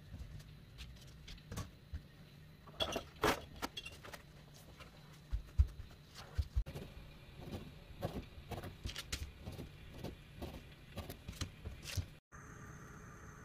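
Paper towels crinkling and rustling, with irregular soft taps and pats, as gloved hands press raw cutlassfish pieces dry and shift them on a board. A few sharper taps stand out, and the sound breaks off sharply near the end.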